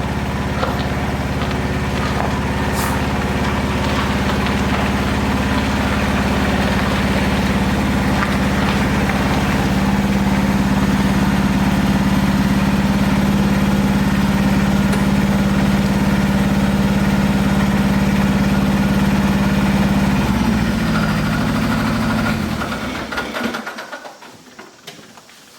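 An engine idling steadily, then switched off near the end, running down over a couple of seconds to a stop.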